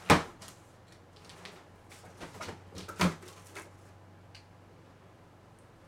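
Cardboard shipping box being opened by hand: a loud crackle and scrape as a taped flap is pulled back, then several lighter cardboard rustles and knocks, with one sharper crack about three seconds in.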